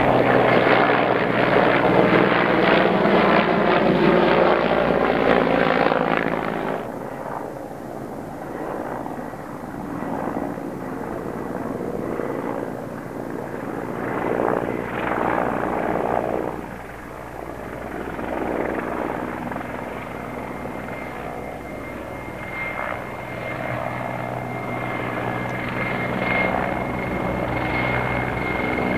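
Mi-24P attack helicopter flying past: its rotor and twin turboshaft engines are loud for about the first six seconds, then drop back as it moves away, and build again toward the end as it comes close overhead, with a steady high turbine whine.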